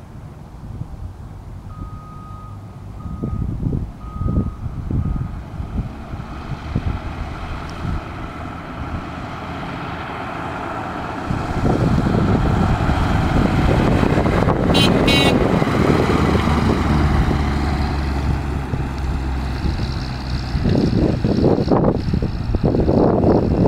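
A 1936 Rolls-Royce 20/25's 3669cc inline six-cylinder engine running as the car drives up and passes close by, getting louder about halfway through. Near the start, a distant truck's reversing alarm beeps four times.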